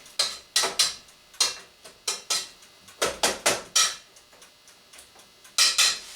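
Kitchen utensils knocking and clinking against pots and dishes: a run of sharp taps in irregular clusters, the last pair near the end.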